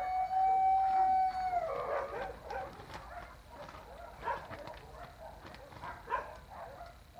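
A dog's long, steady howl that falls off and ends about two seconds in, then puppies yipping and growling in short bursts as they play-fight.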